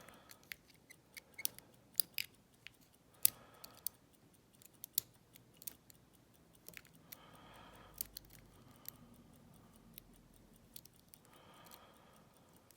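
Small, sharp metallic clicks and ticks of a lock pick working the spring-loaded wafers of a Corbin wafer cabinet lock under light tension, coming irregularly, a few much louder than the rest. The lock is sitting in a false set.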